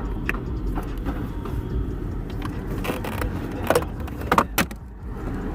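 Hand tools and small hard parts being handled while car interior trim is taken apart: a few short, sharp clicks and rattles, the loudest in the second half, over a steady low rumble.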